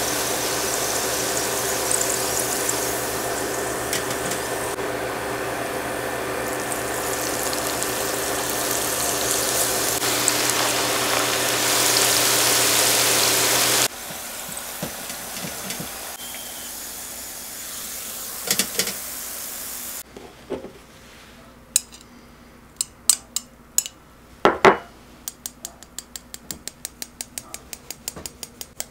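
Hot oil sizzling as udon-dough donuts deep-fry, over a steady hum; the sizzle cuts off abruptly about halfway through. Then come scattered clicks and a sharp knock, and near the end quick, even tapping of a small mesh sifter dusting powdered sugar.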